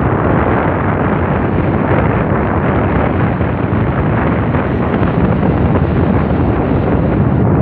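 Steady, loud wind rush buffeting the microphone of a scooter in motion, covering any engine or tyre sound beneath it.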